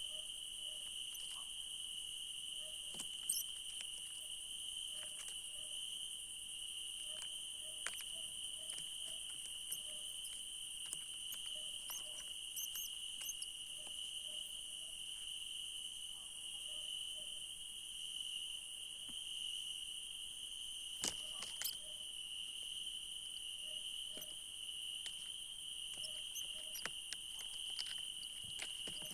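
Steady, high-pitched chorus of night insects trilling without pause, with scattered faint clicks and rustles.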